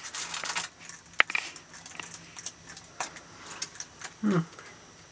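Bearded dragon chewing and swallowing a soft silkworm: scattered small clicks and wet smacks of the jaws, the sharpest about a second in and again at three seconds. About four seconds in, a brief low hum from a person's voice.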